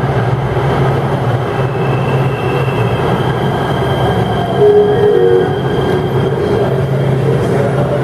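Los Angeles Metro light rail train running along an underground station platform: a steady motor hum and wheel-on-rail rumble with thin high whining tones.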